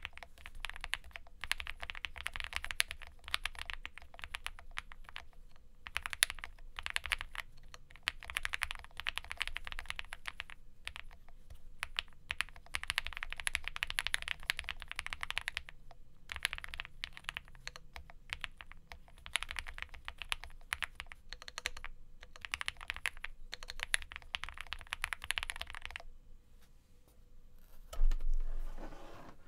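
Typing on an Owlab Spring Alice-layout mechanical keyboard with lubed C3 Banana Split linear switches, an FR4 plate, foam inside and GMK keycaps. The key presses come in runs of a few seconds with short pauses between them. The typing stops a few seconds before the end, and a single loud low thump follows.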